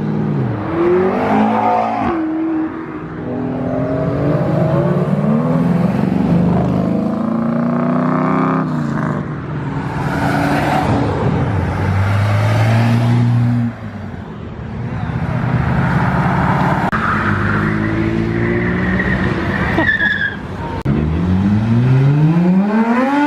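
Performance cars accelerating hard away one after another, their engines revving up through the gears in repeated rising sweeps, with a loud run-up starting about 21 s in.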